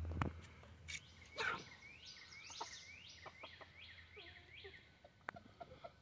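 A songbird sings a run of about nine quick, repeated high chirping notes, with soft low clucking from chickens and a few short knocks, the loudest about a second and a half in.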